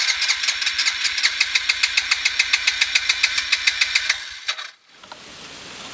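Motorbike engine being cranked by its electric starter, a fast even chugging for about four and a half seconds that stops without the engine catching. The bike won't start after falling off its side stand.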